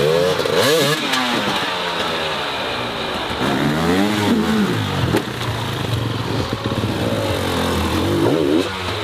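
Off-road motorcycle engines revving hard in repeated bursts, the pitch rising and falling with each blip of the throttle, as the bikes are forced through deep mud and up a log obstacle.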